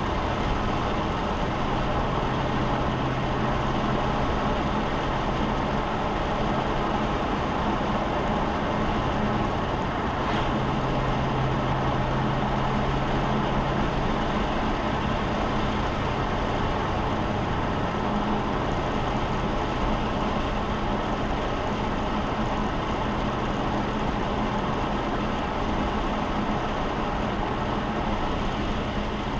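Car cruising steadily: a constant low engine hum under road and tyre noise, the hum's pitch shifting slightly for a few seconds in the middle.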